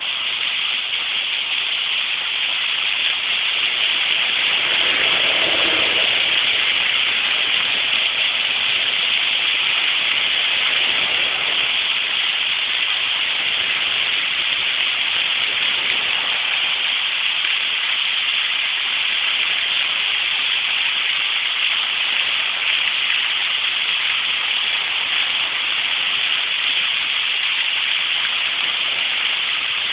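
Fountain jets splashing down steadily: a continuous, even rush of falling water.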